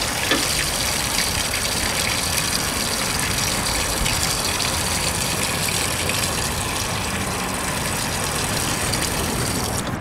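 Hose running water steadily into the radiator filler neck of a Case 930 diesel tractor, a constant gush of liquid filling the cooling system, which is still taking more. It cuts off near the end as the hose is lifted out.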